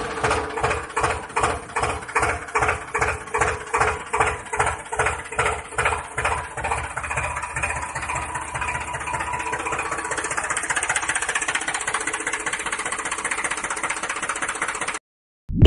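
Tractor engine chugging in slow, even pulses about twice a second, then settling into a steady, smoother run about halfway through.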